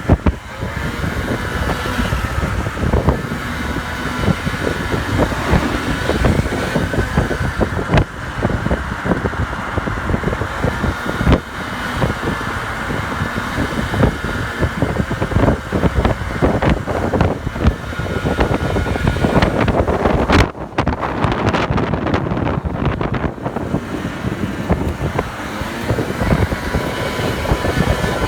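A 50cc moped scooter engine running at speed, its pitch drifting gently up and down, with wind buffeting the microphone.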